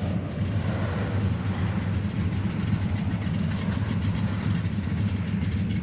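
C1 Corvette engine idling in slow traffic, a steady low-pitched idle with no revving.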